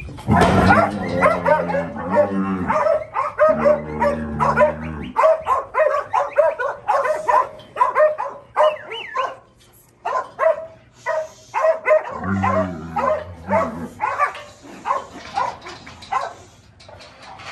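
Cattle dogs barking and yipping rapidly over and over while they work a cow in a steel pen. A few longer, deeper sounds are mixed in near the start and about twelve seconds in, and the barking eases briefly around ten seconds.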